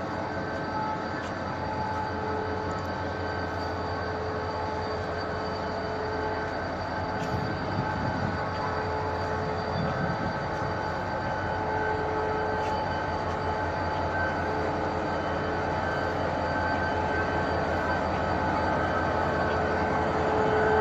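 A train rolling slowly past at close range, with a steady mechanical running sound and a constant whine from the locomotive that couples the streamlined carriages. It grows gradually louder as the locomotive draws near.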